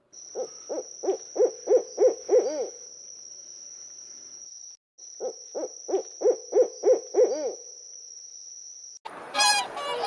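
An owl hooting in two runs of about eight low hoots each, the hoots coming quicker and louder toward the end of each run, over a steady high-pitched whine. Geese start honking near the end.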